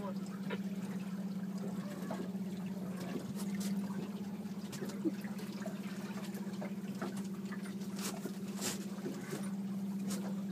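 Boat's outboard motor running steadily with a low hum, water sloshing and trickling against the hull, and a few scattered clicks and knocks.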